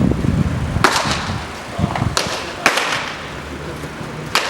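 Baseballs smacking into leather catcher's mitts during bullpen pitching practice: four sharp pops, the two in the middle about half a second apart.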